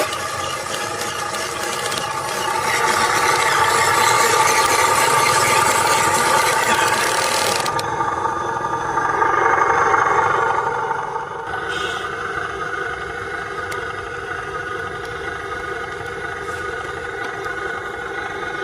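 Radio-controlled model truck running, its motor and gears whining steadily with some rattling; the sound gets quieter about eleven seconds in.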